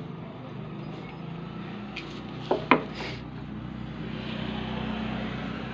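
Two sharp metallic clinks in quick succession about two and a half seconds in, as the brush holder and clip leads are handled against the self-starter motor's metal housing, over a steady low hum.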